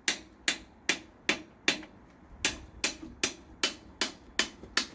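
Hammer tapping repeatedly on a metal tool or part on the bike's crank, in sharp metallic strikes about two and a half a second, with a short pause just before the middle.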